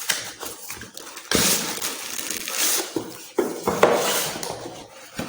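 Cardboard box and plastic packaging being handled and crinkled as a small portable speaker is pulled out. The rustling and crackling comes in several bouts, two of them starting suddenly, about a second in and past the three-second mark.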